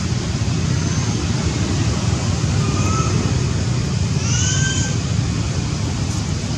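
Steady low rumbling noise, like wind on the microphone or distant traffic, with a few brief high chirps near the middle.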